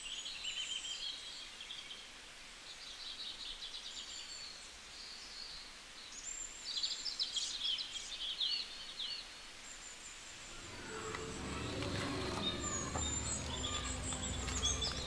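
Small birds chirping in quick, high trills and calls through the first nine seconds or so. From about ten seconds in a low rumble sets in, with a few sharp clicks over it.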